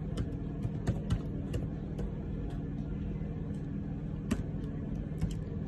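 Computer keyboard keys tapped as a few words are typed: a handful of scattered single clicks over a steady low hum.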